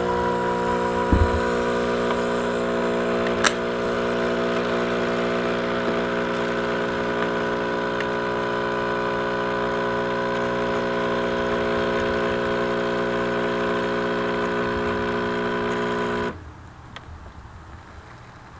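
Nescafé Dolce Gusto Genio S Plus capsule coffee machine's pump running with a steady hum as it brews the espresso capsule, with a couple of light clicks in the first few seconds. It cuts off on its own about sixteen seconds in, when the brew is done.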